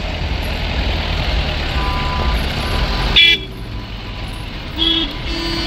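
Vehicle horns tooting: one short toot about three seconds in, then two more near the end, the last held a little longer. A steady low rumble of road traffic runs underneath.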